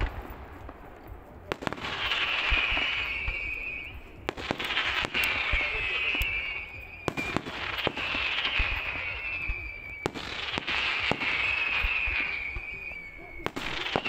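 Fireworks display: a shell bursts with a sharp bang about every three seconds, each bang followed by a high hissing whistle that falls slightly in pitch and lasts about two seconds.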